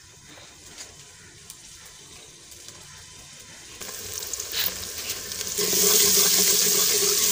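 Chopped onions sizzling in hot ghee in a metal pot, stirred with a steel ladle. The sizzle is faint at first, swells about four seconds in, and is loud and steady from about six seconds.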